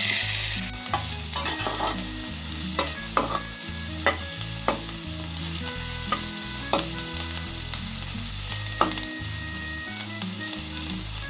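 Chopped onions dropped into hot oil in a metal kadhai: a sudden loud sizzle that settles into steady frying. A metal spatula stirs through them, scraping and clinking against the pan every half second or so.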